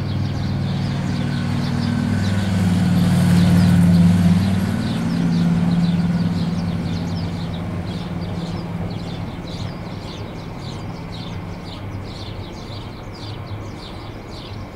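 An engine hum swells, is loudest about four seconds in, drops slightly in pitch as it passes, then fades away. Small birds chirp repeatedly over it throughout.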